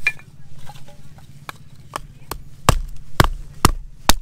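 Small hatchet chopping and splitting firewood into kindling: a run of sharp wooden knocks, light at first, then several hard strikes about two a second in the second half.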